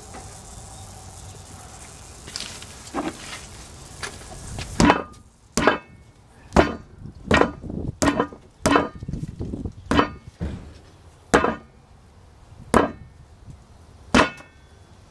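Hammer blows: a couple of light knocks, then from about five seconds in about ten sharp strikes at uneven intervals roughly a second apart, some with a brief metallic ring.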